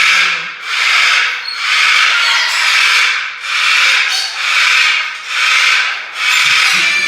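Loud rhythmic rubbing strokes, about one a second, each a rasping sweep that swells and fades.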